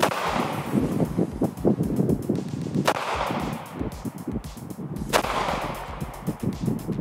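Three shots from an NAA Pug .22 WMR mini revolver, fired slowly, each a sharp crack with a short ringing tail: one at the very start, one about 3 seconds in and one about 5 seconds in.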